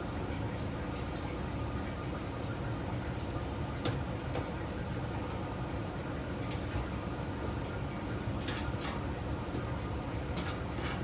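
Steady low rumble of a commercial kitchen's gas wok range and exhaust hood, with a thin high whine over it and a few short clicks about four seconds in and again near the end.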